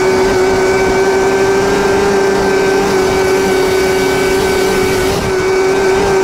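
Vintage 1979 Scorpion Whip TKX snowmobile's two-stroke engine running at a steady speed on the move, one even, held note with no change in pitch.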